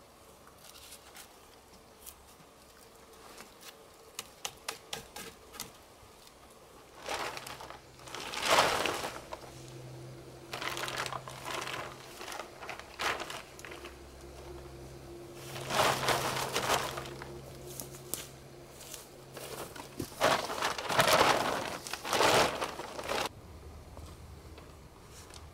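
A plastic tarp being handled, shaken out and spread over a log shelter frame, crinkling and rustling in four loud bursts. A run of light clicks comes before the first burst.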